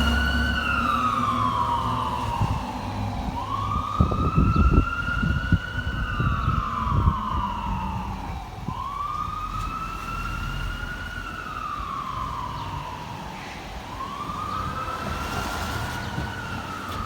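Fire apparatus siren in wail mode: a slow rise and fall in pitch, repeating about every five seconds, gradually fading as the truck moves off. A burst of low rumble comes about four seconds in.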